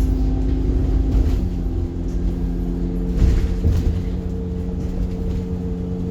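Alexander Dennis Enviro bus engine running with a steady drone. Its note drops about one and a half seconds in, and there is a brief louder knock a little over three seconds in.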